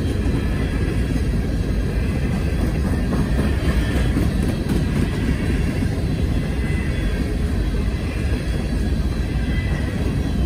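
CSX coal train's cars rolling past, a steady loud rumble of wheels on rail.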